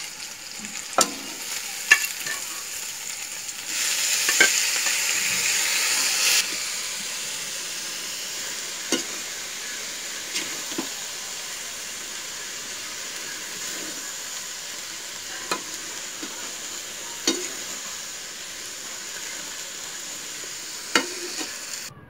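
Chopped banana stem frying in hot coconut oil in a metal kadai, a steady sizzle with the spatula clicking and scraping against the pan every few seconds. The sizzle is louder for about two seconds, some four seconds in.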